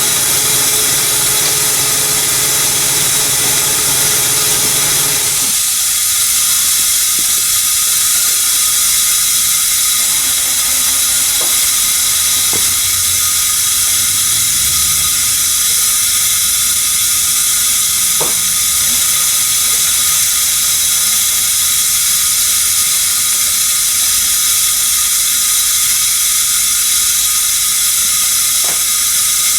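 Steady loud hiss, with a low hum that cuts off about five seconds in and a few sharp clicks later on.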